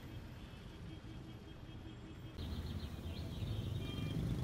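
Outdoor ambience: a low, steady rumble of distant road traffic, then, from about two and a half seconds in, birds chirping over a slightly louder background.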